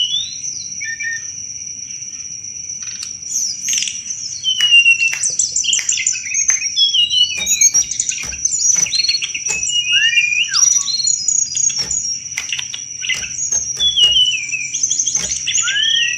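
Tledekan gunung singing a busy, varied song of rapid chattering trills and sliding whistled notes, the 'cetrekan' chatter style. A steady, high insect-like drone runs underneath.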